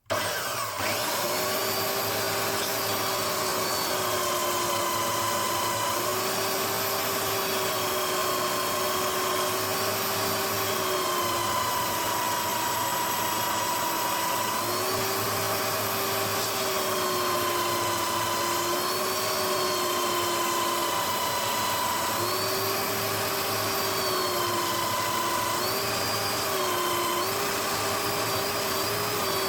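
Electric bench sander running under load, sanding a steel-and-acrylic lock pick handle flat on 80 grit. A steady machine whine whose pitch dips and comes back up every few seconds.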